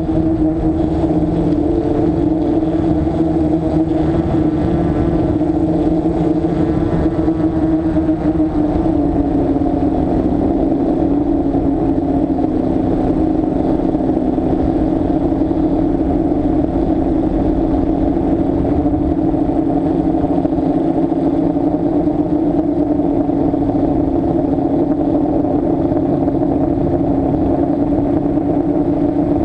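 DJI F550 Flame Wheel hexacopter's six electric motors and propellers humming steadily in flight, heard from the onboard camera. The pitch dips slightly about ten seconds in and then holds.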